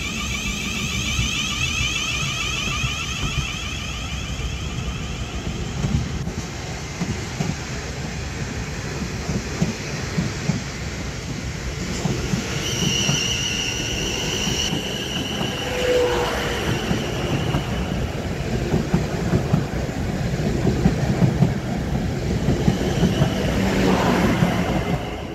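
A train running through a station: steady rail rumble with scattered clicks of wheels over rail joints. A high whine is heard over the first few seconds and then fades. A brief high squeal comes about halfway through, and the sound cuts off suddenly at the end.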